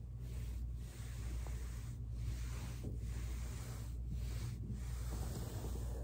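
Foam roller rubbing and rolling on carpet under a person's weight: a steady rustling that dips briefly every second or so, over a low steady hum.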